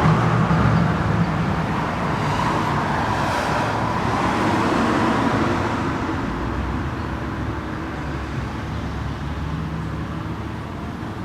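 Steady low rumbling background noise with no distinct events, slowly growing quieter.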